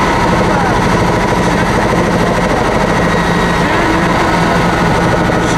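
Helicopter cabin noise in flight: a loud, steady drone of rotor and turbine engine with a constant low hum.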